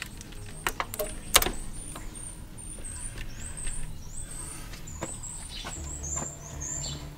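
A few light clicks and knocks from hands handling wiring and connectors in a car's engine bay, in the first second and a half, over a steady low hum, with many short high-pitched chirps from about two seconds in.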